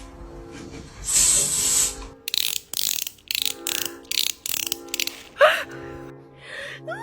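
Background music under a string of sound effects: a burst of hiss about a second in, then a run of rapid sharp clicks, then a short rising chirp.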